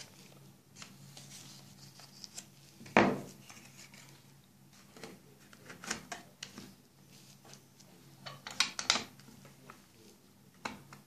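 Hard plastic clicks, taps and rubbing from handling a Sony UX-S90 audio cassette and its clear plastic case as the cassette is set into the case, with one loud knock about three seconds in and a quick cluster of clicks later on.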